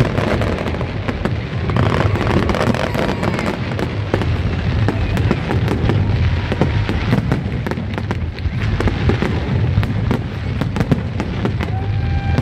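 Aerial fireworks going off continuously: many sharp bangs and crackles, one on top of another, over a steady low rumble.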